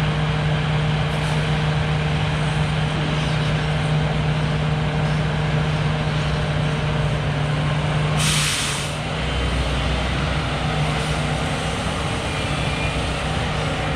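Log truck's diesel engine running steadily, with a short burst of air-brake hiss about eight seconds in, after which the engine note drops lower.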